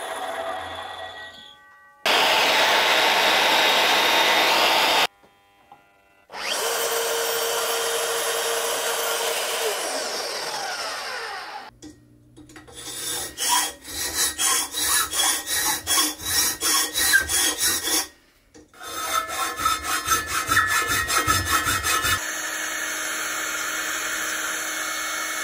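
A Bosch mitre saw cutting aluminium plate, running and then spinning down. Then a hand file rasping the aluminium edge in quick regular strokes, about two to three a second. Near the end, a spray can hisses steadily as paint is sprayed.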